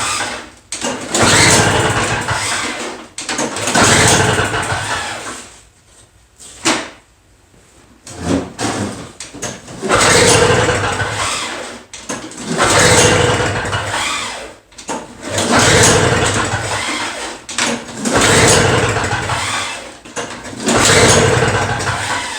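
Two-stroke Toro snow blower engine, choked and primed, being pull-started over and over: about seven pulls, each a loud burst that fades away, with a pause of a couple of seconds about a third of the way in. It turns over on each pull but does not catch and run.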